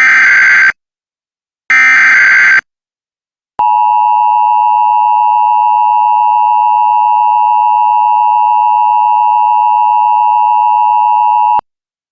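Emergency Alert System signals: two short screechy digital header bursts, then the two-tone attention signal held steady for about eight seconds before cutting off. The tones announce a National Weather Service tornado warning.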